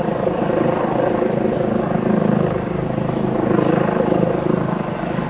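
Helicopter flying overhead, its rotor chop and engine droning steadily.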